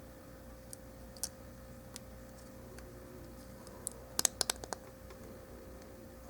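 Plastic model-kit parts of a High Grade RX-78-2 Gundam clicking as a piece is pressed into place on the model's back: a few light clicks, then a quick run of sharp snaps about four seconds in. A faint steady hum runs underneath.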